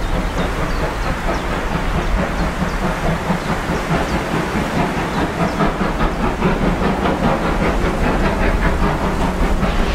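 Steam locomotive 50 3648, a DR class 50.35 2-10-0, working hard on its way uphill: a steady, dense hiss of exhaust beats whose rhythm grows clearer after a few seconds.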